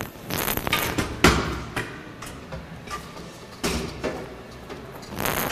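A series of irregular knocks and short scraping bursts, the sharpest about a second in, with no steady machine run.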